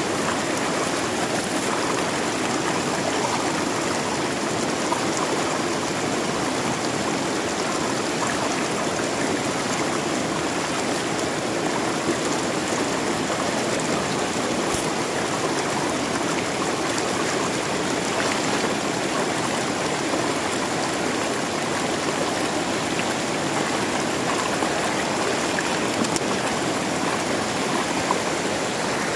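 Shallow, rocky river rushing steadily over stones, a constant even noise of running water.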